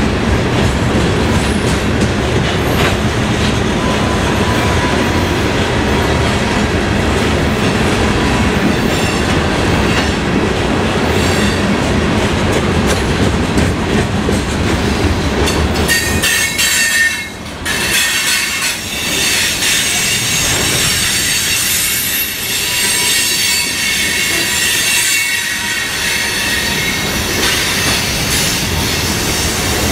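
Union Pacific ballast hopper cars rolling past close by, wheels clattering on the rail with a heavy rumble. About halfway through, the rumble eases and high-pitched wheel squeal rings out over the clatter.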